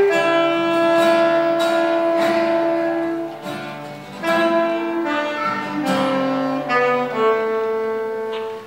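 Saxophone playing a slow melody over strummed acoustic guitar, the closing phrase of the song. The guitar stops about seven seconds in, and the saxophone holds one long final note that ends just before the close.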